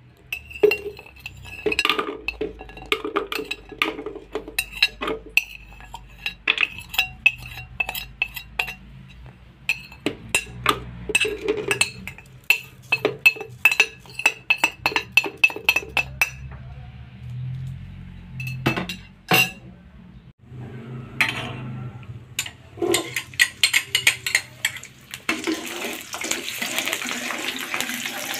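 Repeated clinking knocks, several a second, from utensils as spices are ground into a paste. In the last few seconds, hot oil in a wok starts sizzling as sliced shallots fry.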